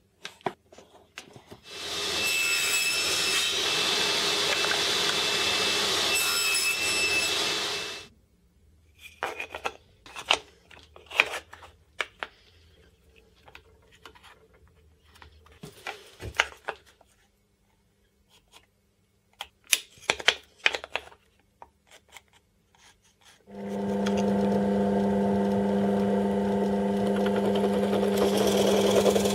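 Table saw cutting wood for about six seconds, stopping abruptly. Then scattered clicks and knocks as a wooden plate is handled and fitted into a tripod head's camera-plate clamp. Near the end a drill press starts with a steady hum and runs as a Forstner-type bit bores into the wood.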